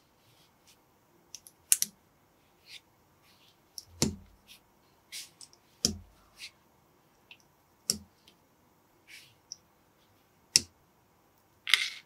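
Plastic Lego bricks clicking and snapping together as small parts are pressed on by hand: scattered sharp clicks, the louder snaps about two seconds apart, with a short rattle of handled pieces near the end.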